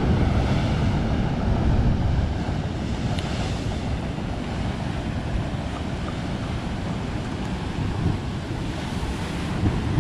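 Ocean surf breaking and washing against the rocky shore below, a steady rushing noise, with wind buffeting the microphone. The surge is somewhat louder in the first two seconds.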